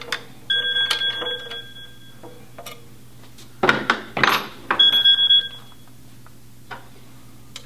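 Metal brake parts clinking and knocking as a screw is started by hand into the caliper mounting bracket. Twice a knock leaves a short, high, bell-like ring, once near the start and again about five seconds in, with a cluster of rattling handling noise just before the second.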